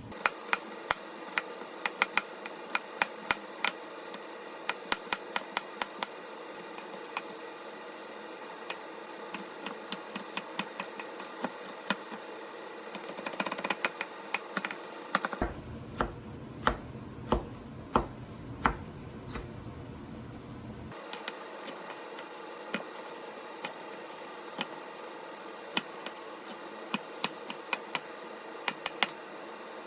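Sharp taps in quick, irregular runs of several a second over a faint steady hum. For about five seconds in the middle, a low rumble comes in and the taps come more slowly.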